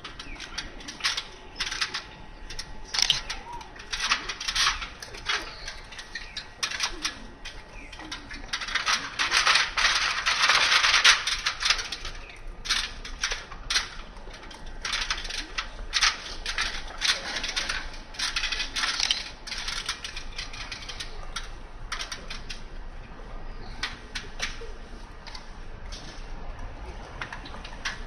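Irregular sharp clicks, taps and short rasping scrapes of hand work on a metal station name sign as it is loosened. They come thickest and loudest about ten seconds in, then thin out.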